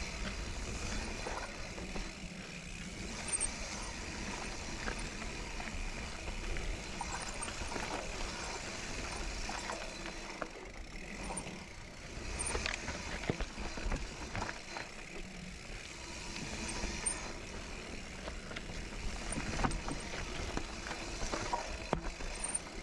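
Kona Process 153 mountain bike being ridden over rooty, rocky dirt singletrack: a steady rumble of tyres on the trail with frequent clicks and knocks as the bike rattles over roots and rocks.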